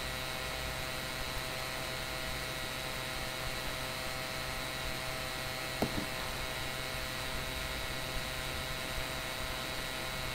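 Steady electrical hum with hiss and several steady tones, with one faint click about six seconds in.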